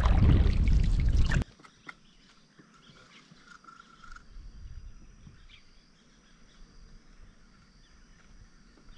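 Loud rushing wind on the microphone that cuts off abruptly after about a second and a half. It gives way to quiet riverside ambience: a faint steady high insect hum and a brief call from a bird or other animal.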